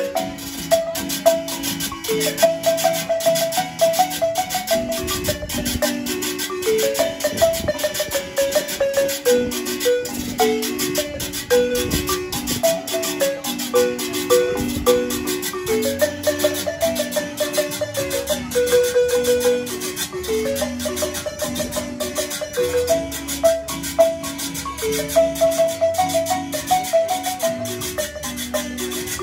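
Marimba played with mallets, a running melody of separate notes over strummed acoustic guitar chords, with a metal scraper keeping a steady, fast rhythm.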